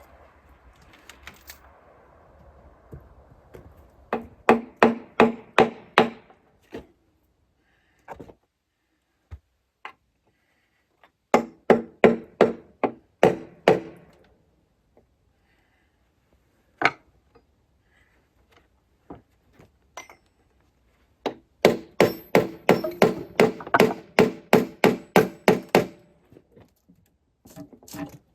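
Three runs of quick hammer blows, about four a second, with a few single knocks between them. The blows are breaking loose the glued-on oil pan of a Caterpillar D3400 diesel.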